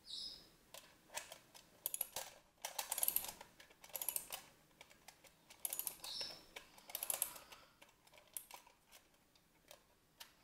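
Tin wind-up robot dog toy's clockwork being wound by its key, the ratchet clicking in short irregular bursts, one per turn of the key, with brief pauses between.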